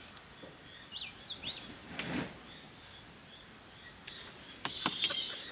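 Quiet rural outdoor ambience with a few quick bird chirps about a second in and a brief dull thud a moment later. Near the end, water splashing in a washing basin as dishes are washed.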